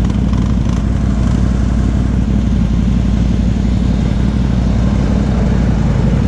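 ATV engines running steadily at low speed close by, a constant low rumble, as four-wheelers and a side-by-side drive slowly past on a dirt trail.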